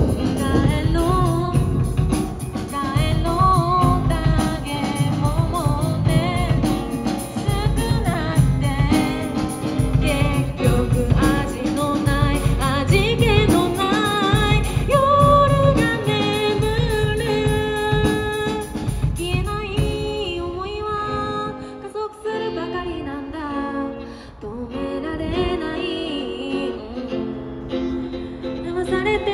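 Small live band playing a song: a woman singing over acoustic guitar, electric bass and drum kit. About twenty seconds in the drums and low end fall away, leaving mostly voice and guitar, then the band fills out again near the end.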